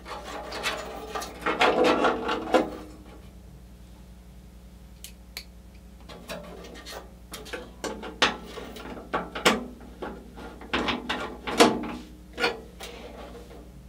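Screwdriver work on metal computer-case parts: scraping, clicking and rattling as screws are driven to fasten a drive cage to the case panel. A dense run of handling noise for the first couple of seconds, a lull, then scattered sharp clicks and scrapes from about six seconds on.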